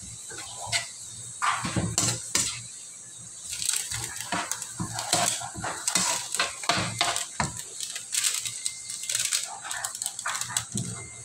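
Metal spatula scraping and knocking irregularly against a wok during stir-frying, over a steady sizzle of hot oil.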